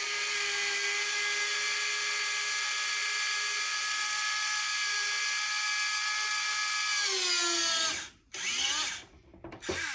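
Tamiya electric hand drill's small motor whining steadily as its 2.0 mm bit drills a porthole through a plastic model ship hull. It spins up at the start, dips in pitch about seven seconds in, stops about a second later, then runs again in two short bursts that wind down.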